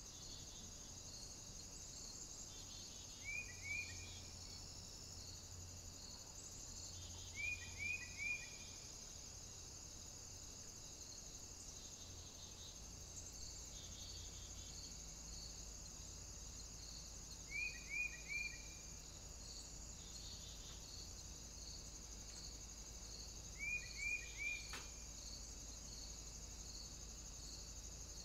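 Steady chorus of insects, crickets or cicadas, with a faint regular pulsing under it, played back at double speed. Four times, a quick group of two or three short, high, falling chirps stands out above it.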